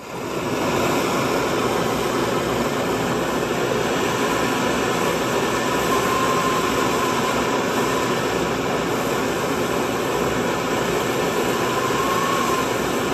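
MAP gas torch flame hissing steadily against the edge of a steel wheel rim turning slowly on a metal lathe, with the lathe running underneath. The noise builds up over about the first second, then holds even. The rim's edge is being heated so it can be spun outward.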